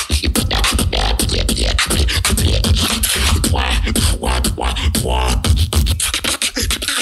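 Beatboxer performing a fast routine into a microphone through a PA: dense kick, snare and hi-hat sounds over a heavy bass, with a stretch of sung-like pitched tones in the middle.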